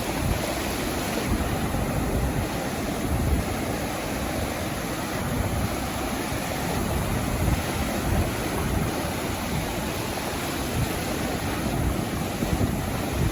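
Sea waves washing onto a beach, a continuous surf wash, with wind buffeting the microphone.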